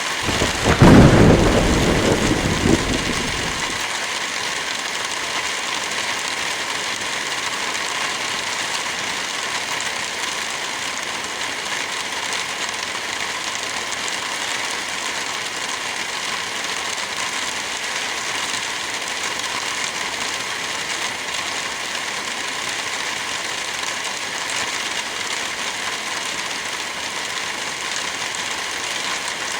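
Heavy rain falling steadily. In the first few seconds a loud low rumble of thunder swells about a second in and fades away by about four seconds.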